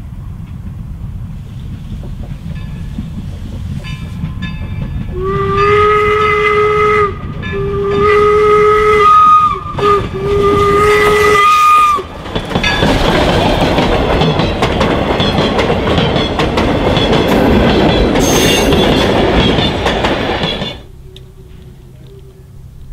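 York 17, a 4-4-0 steam locomotive, approaching with a building rumble, then blowing its steam whistle in four blasts, long, long, short, long: the grade-crossing signal. It then passes close by with a loud rush and clatter of the engine and coaches, which cuts off abruptly near the end.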